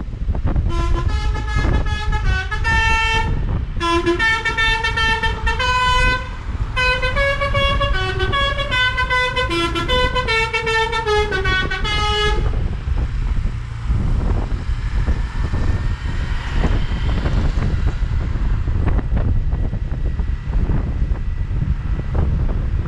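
A bus's Basuri telolet horn playing a stepping multi-note melody, starting about a second in, with a short break after a few seconds, and stopping about halfway through. A steady low rumble runs underneath and carries on alone after the horn stops.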